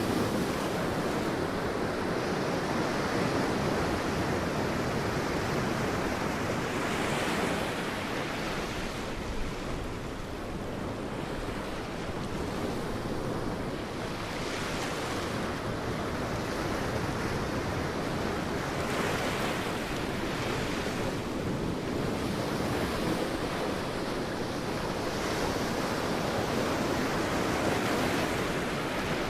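Sea waves breaking and washing on a beach, a continuous surf hiss that swells and eases every few seconds, with some wind.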